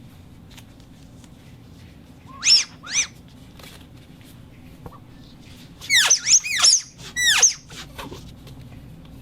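Rubber squeaking: short, high squeals that sweep sharply in pitch, two at first, then a quick run of about six that arch up and down.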